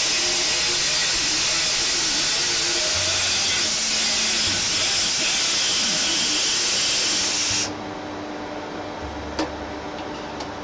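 Pneumatic grinder hissing steadily as it grinds steel, then stopping abruptly about three-quarters of the way through. A low steady hum remains, with a single sharp click shortly after.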